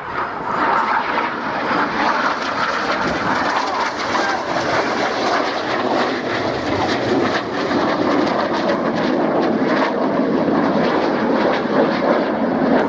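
Steady jet noise from the Red Arrows' BAE Hawk T1 jets flying their display, the Rolls-Royce Adour turbofans running at display power.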